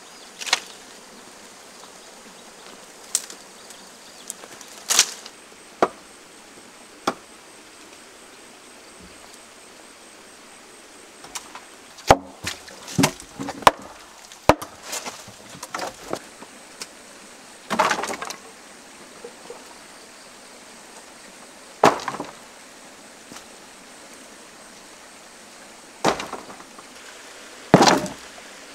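Wooden boards and bamboo knocking and clattering as they are moved and set down by hand. The knocks come irregularly, with a quick run of them midway and several louder clatters toward the end, over a steady background hiss.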